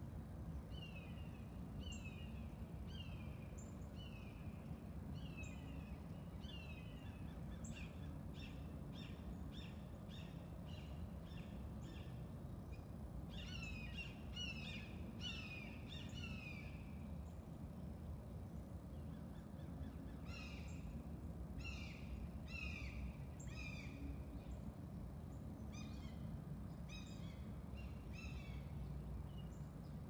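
A songbird singing runs of repeated whistled notes, each note sliding down in pitch, about two notes a second, with short pauses between runs, over a steady low background rumble.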